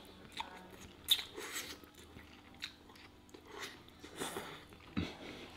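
A person slurping ramen noodles from chopsticks and chewing: several short slurps and mouth noises.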